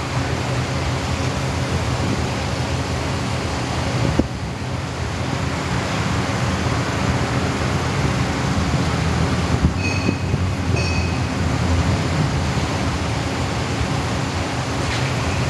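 Steady traffic and engine hum heard from a car creeping along in slow city traffic. There is a short knock about four seconds in and two brief high-pitched tones about ten seconds in.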